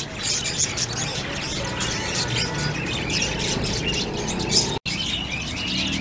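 Many small caged finches chirping together in quick, high, overlapping calls over a low steady background, with a brief gap just before the end.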